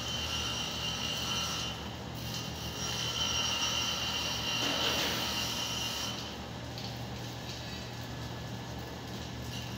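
A steady low mechanical hum with a hiss higher up that swells and fades, from machinery running in a vehicle workshop.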